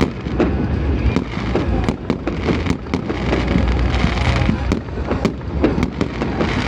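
Aerial fireworks going off in rapid succession: many sharp bangs and crackles over a continuous low rumble.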